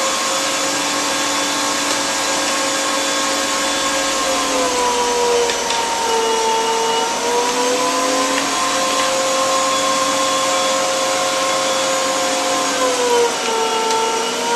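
Arçelik K 1766 1400 W electric meat grinder running with a steady motor whine while mincing meat. Its pitch drops twice, about five seconds in and again near the end, as the motor slows under the load of meat being pushed down the feed tube.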